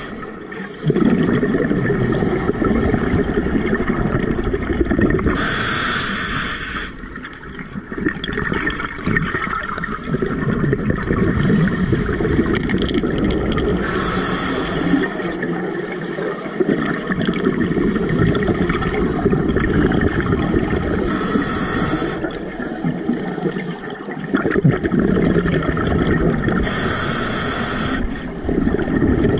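Scuba diver breathing through a regulator underwater: four short hissing inhales come about every seven seconds, and long bubbling exhales rumble between them.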